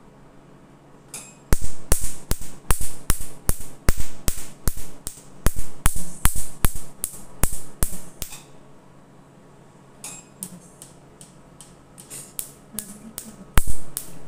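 Tattoo-removal laser firing on the skin: a quick run of sharp snaps, about three to four a second. After a pause of a second or two, the snaps come more slowly and unevenly.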